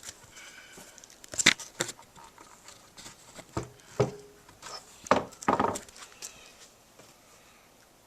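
Handling noise from a planed white oak slab being turned over: about half a dozen sharp knocks and clunks spread over several seconds, with light scraping between them, then quiet.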